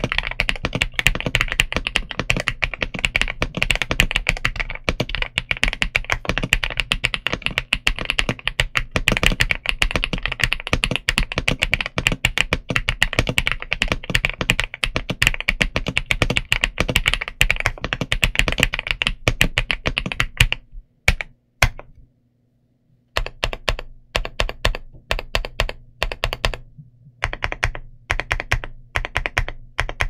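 Kzzi K75 Lite mechanical keyboard with Rain linear switches and MDA double-shot PBT keycaps being typed on fast and continuously. About two-thirds of the way through the typing stops briefly, then comes back as a few shorter, sparser bursts of keystrokes.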